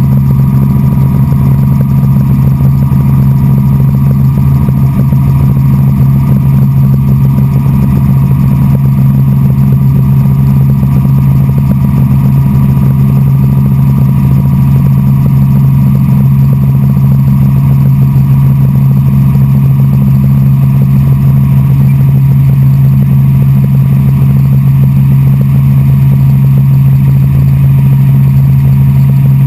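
Helicopter in steady forward flight, heard from inside the cabin: the rotor and engine make a loud, unchanging low drone.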